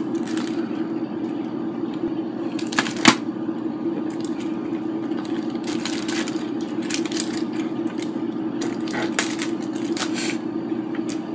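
Scattered clicks and crinkles of a CD case and its packaging being handled, with one sharper knock about three seconds in, over a steady low hum.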